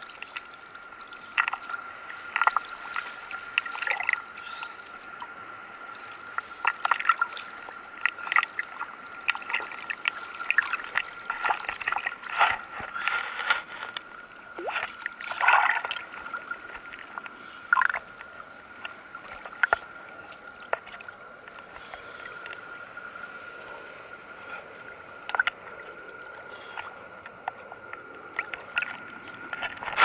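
Sea water sloshing and splashing around a camera held at the surface by a swimmer: many short, irregular splashes over a steady high whine.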